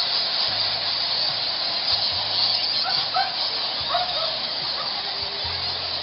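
A huge roosting colony of Geoffroy's rousette fruit bats calling all at once: a dense, steady, hiss-like chatter, with short separate squeaks standing out now and then from about halfway through.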